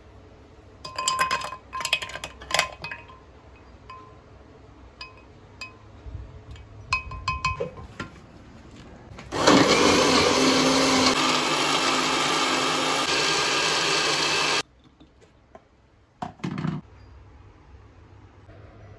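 Glass and dishes clinking with a light ring, then an electric blender running loud and steady for about five seconds before cutting off suddenly.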